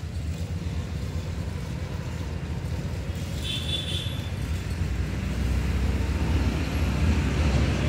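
Road traffic running past: a steady low engine rumble that grows louder in the second half, with a brief high-pitched tone a little before halfway.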